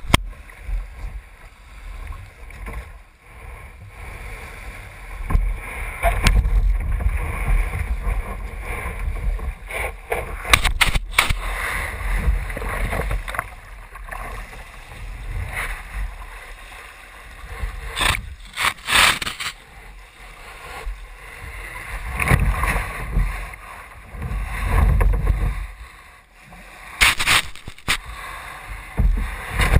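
Wind gusting over a GoPro's microphone on a kayak's deck, with small waves washing on the sand and a handful of sharp knocks on the hull or camera mount.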